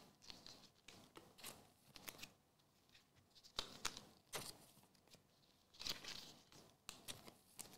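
Faint, irregular rustles and soft clicks of football trading cards being handled and slid into thin plastic penny sleeves.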